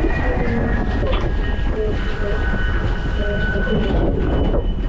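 F50 foiling catamaran running fast on its foils: a loud, steady rush of wind and water over the hull with a thin, steady high whine on top.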